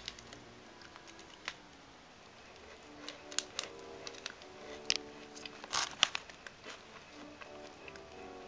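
Scattered clicks and crinkles of a plastic snack wrapper being handled, the loudest cluster about six seconds in. Faint background music with a slow stepping melody comes in about two and a half seconds in.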